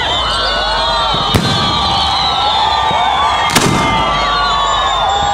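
Fireworks display: many firework whistles sounding at once, overlapping and bending up and down in pitch, with two sharp bangs, one about a second and a half in and one about three and a half seconds in.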